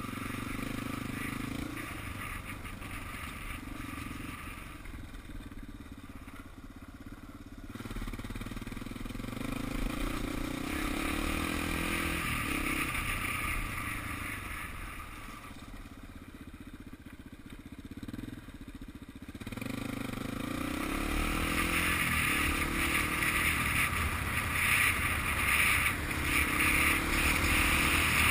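Motorcycle engine running under a rider's throttle, its pitch rising and falling. It eases off and goes quieter for a few seconds past the middle, then gets louder over the last third.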